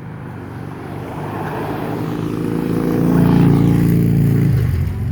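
A semi truck driving past on the road: its engine drone and tyre noise build up, are loudest about three to four seconds in, then drop away near the end.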